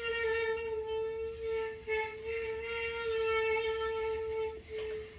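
A single instrument holds one long, steady note, stops briefly a little before the end, then plays one short last note.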